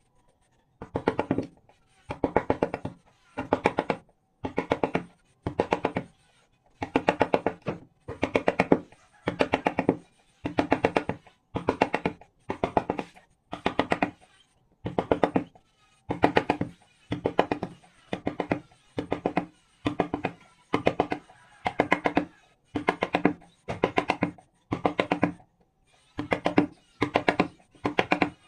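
A hand tool scraping wood in a steady rhythm, about one stroke a second. Each stroke is a short rasping pass made of many rapid ticks, like a rasp or saw teeth dragging through the grain, with a brief pause between strokes.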